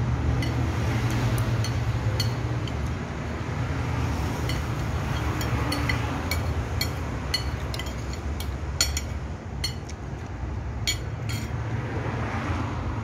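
Metal spoon and fork clinking and scraping on a plate while someone eats, in scattered sharp clicks that come thickest in the second half. Underneath is a steady low rumble of road traffic.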